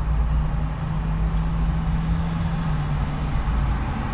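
Fairly heavy urban road traffic close by: a continuous rumble and tyre noise of passing cars and heavier vehicles. A low, steady engine hum runs under it and fades out about three and a half seconds in.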